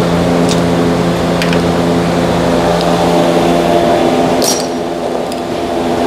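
A few light metal clinks of hand tools against engine parts, over a loud, steady machine hum.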